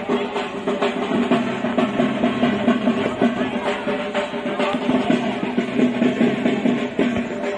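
Music with fast, dense drumming and rolls over steady held notes.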